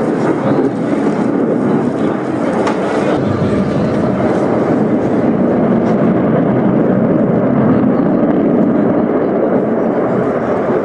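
Sukhoi Su-35 fighter jet's twin Saturn AL-41F1S turbofan engines running in a loud, steady roar during a display flight. The higher hiss fades about halfway through while the deep roar carries on.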